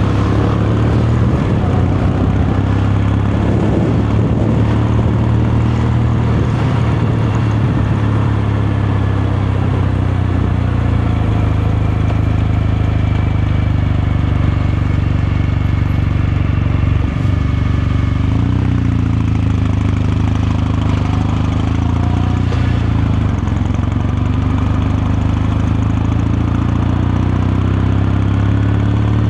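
Kawasaki Meguro K3's 773 cc air-cooled parallel-twin engine and exhaust running steadily under way. About two-thirds through, the engine note briefly drops and then climbs again.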